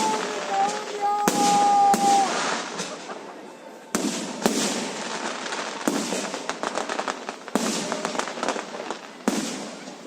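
Aerial fireworks display: a series of sharp bangs every second or two, each followed by crackling as the shells burst. A high whistling tone runs through the first two seconds.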